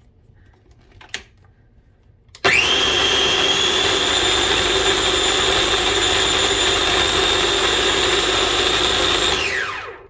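A light click about a second in, then an electric food processor motor starting about two and a half seconds in. It runs steadily with a high whine for about seven seconds, blending Parmesan into garlic scape pesto, then winds down with a falling pitch near the end.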